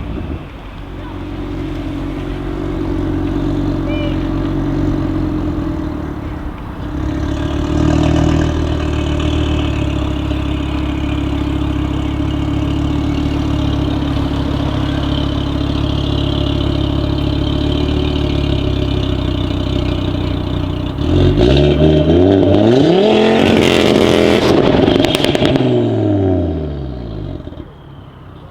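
Audi RS3's turbocharged five-cylinder engine, fitted with an aftermarket downpipe, running steadily for about twenty seconds. Near the end, and loudest, its pitch sweeps up and back down over about five seconds before the sound drops away.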